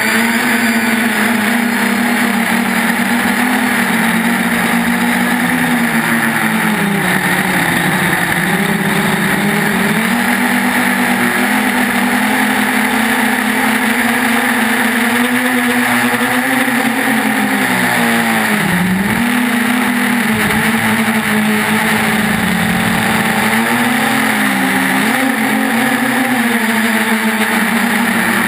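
3DR Iris+ quadcopter's motors and propellers buzzing steadily in flight. The pitch wavers with the throttle and drops sharply and briefly about two-thirds of the way through, with smaller dips before and after.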